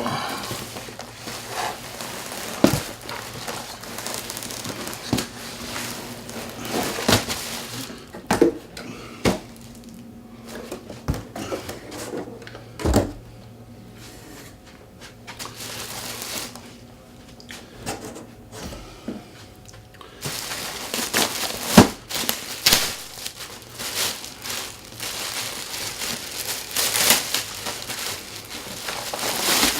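Packaging crinkling and rustling as an accessory is unwrapped and handled, with scattered knocks and bumps; it quietens for a while in the middle, then the crinkling picks up again.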